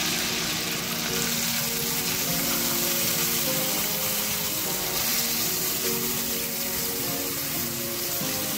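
Chicken pieces frying in hot oil in a karahi, sizzling steadily as a cup of water is poured in and stirred through with a slotted spoon.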